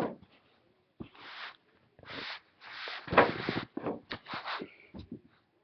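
Irregular bursts of rustling and scraping noise broken by several sharp knocks.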